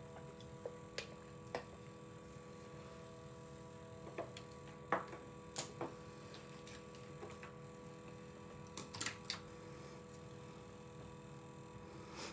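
Faint, irregular small clicks and taps from objects being handled, about a dozen spread unevenly with a cluster of them near the three-quarter mark, over a steady low electrical hum of several tones.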